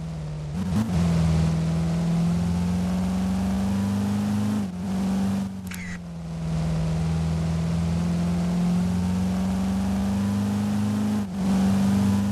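A vehicle engine running at a steady speed. Its hum steps down and back up in pitch a few times at brief breaks, and a short falling squeal comes about six seconds in.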